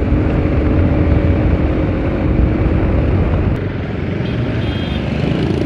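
Bajaj Pulsar RS200 motorcycle's single-cylinder engine running at a steady cruise, heard under heavy wind rumble on the rider's microphone.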